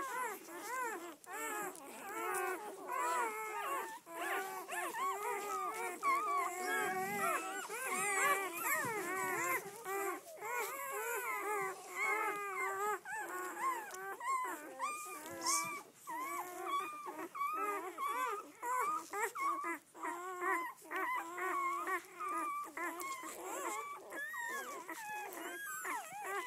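Newborn red Doberman pinscher puppies squeaking and whimpering together while they nurse. Many short rising-and-falling cries overlap without a break.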